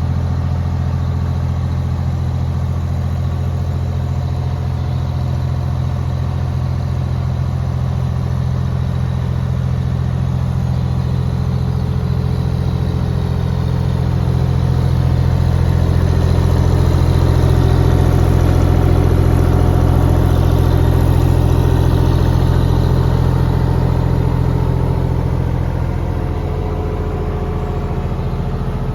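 2006 JCB 8030 ZTS mini excavator's diesel engine running steadily at low revs, getting somewhat louder for several seconds in the middle before easing back.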